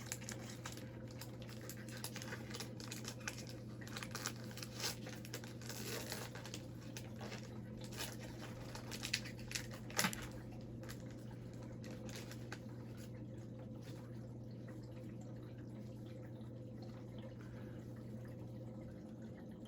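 Hockey card pack wrapper being torn open and crinkled, then the cards handled, as soft scattered rustles and clicks, mostly in the first half, over a steady low hum.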